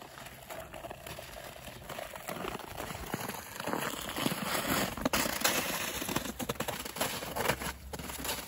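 Ice skate blades scraping over thin lake ice, with irregular crackles and clicks from the ice.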